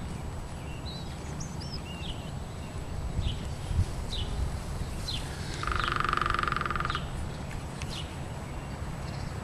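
Outdoor garden ambience: small birds give scattered short, high chirps. A buzzy rattling call lasts about a second and a half a little after halfway, over a steady low rumble.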